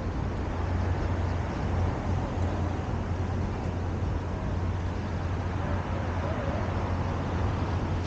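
Steady low rumble of distant road traffic, even and unbroken.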